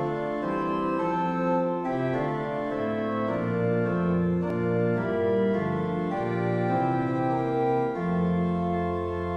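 Organ playing a hymn tune in sustained four-part chords over a low bass line, the chords changing about once a second, with no voices.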